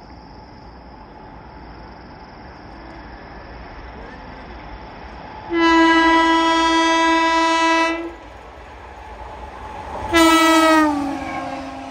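Indian Railways electric locomotive approaching at speed: a rumble building slowly, then a long steady horn blast of about two and a half seconds, and a second shorter blast about ten seconds in whose pitch slides down as the locomotive passes.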